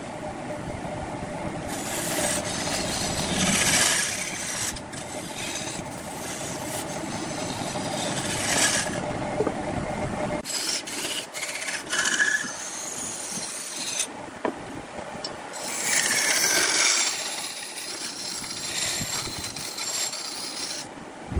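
A hand-held turning chisel cuts into a large red-wood baluster spinning on a wood lathe. It makes a scraping, rasping cut that comes in repeated louder bursts each time the tool bites and throws shavings.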